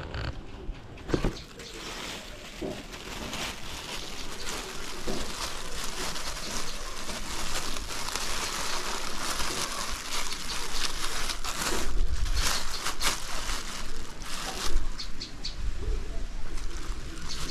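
Thin plastic bag crinkling and rustling in irregular bursts as hands handle it and fit it around a ringed mango branch, wrapping it for air layering.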